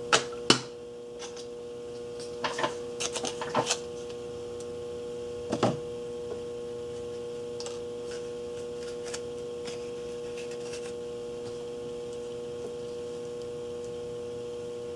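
Steady electrical hum from bench equipment, with a few short clicks and rustles of small parts being handled on a workbench in the first six seconds.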